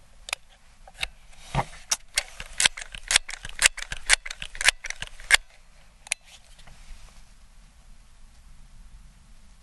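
Crosman 1322 multi-pump pellet pistol being cocked, loaded and pumped: a quick run of sharp metallic clicks and clacks from its bolt and pump lever, bunched over the first five seconds or so, then a faint hiss once the handling stops.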